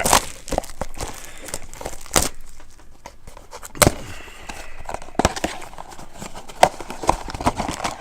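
A Funko mystery-mini blind bag being torn open and handled: crinkly packaging rustling, broken by several sharp clicks and taps.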